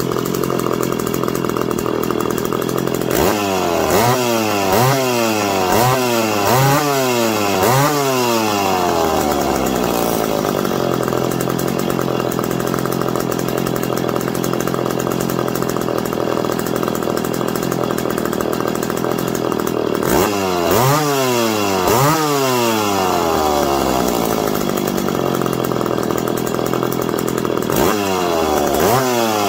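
McCulloch PM 700 two-stroke chainsaw engine idling, its throttle blipped in quick revs: a run of about five blips a few seconds in, three more about two-thirds of the way through, and another run starting near the end.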